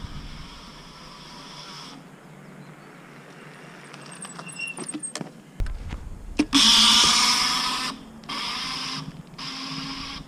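Scooter's rear wheel making a loud grinding whir as it takes off from a stop under throttle, a noise that comes only when the wheel is under load. The loudest burst starts about six and a half seconds in and lasts over a second, followed by two shorter bursts, with a few clicks a little before.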